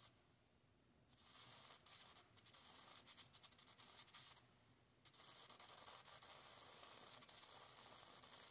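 Faint, scratchy hiss in two stretches, starting about a second in with a short break about halfway.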